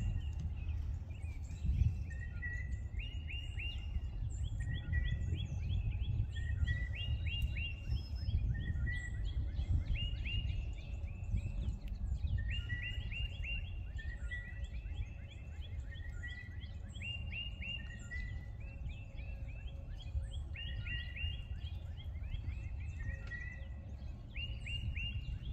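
A chorus of small animals calling outdoors: short runs of several quick chirping notes, repeated every second or two and overlapping, over a steady low rumble.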